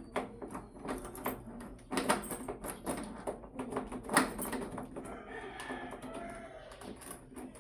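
Irregular metal clicks and knocks from handling door knob hardware and its screws. A rooster crows in the background about five seconds in.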